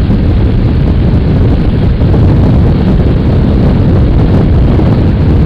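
Steady, loud wind rush buffeting the microphone of a motorcycle at highway speed, with road and engine noise mixed underneath; the audio is partly overdriven.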